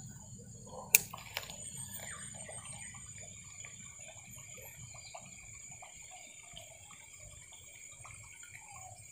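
Faint, irregular water sounds from a lure being worked across the surface of a river, small splashes and trickles, with one sharp click about a second in.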